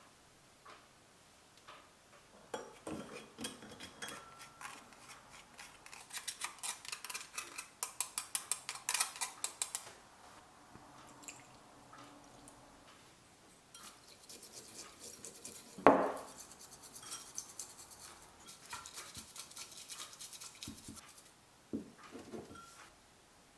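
Utensils working in a bowl while matcha is prepared: runs of quick, regular scraping strokes, about five a second, with one sharp knock about sixteen seconds in and a few light taps near the end.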